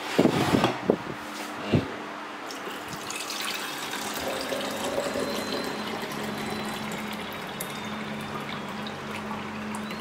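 Water poured from a jug into the clear plastic water tank of a Nespresso Essenza Mini coffee machine, a steady stream filling the tank. A few knocks in the first two seconds before the pour settles.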